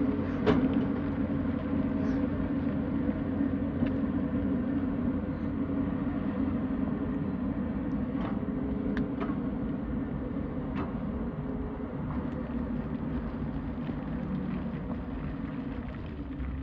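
Tata Hitachi excavator's diesel engine running steadily under work, with scattered sharp knocks.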